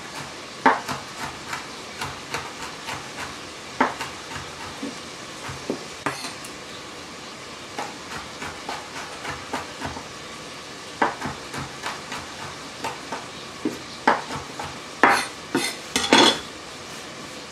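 Chef's knife chopping fresh rosemary on a wooden cutting board: irregular knocks of the blade on the wood, a few a second, with a few louder knocks near the end.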